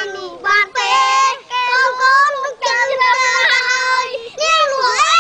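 Three young boys singing a song together, unaccompanied, in phrases of held notes with short breaks between them.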